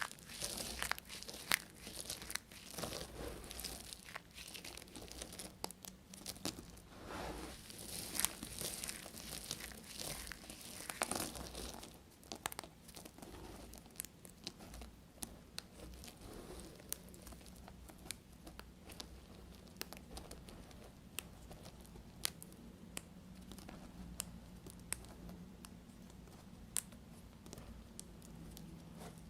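Knife cutting through bars of dry soap, with dense crunching and crumbling for about twelve seconds, then only scattered small clicks and crumbs falling.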